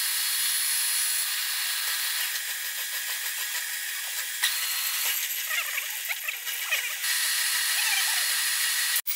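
A milling machine's disc cutter (slitting saw) cutting through a metal blank: a steady high-pitched whine and hiss of the cut, with small scraping chirps from the teeth and chips. The sound drops out briefly near the end.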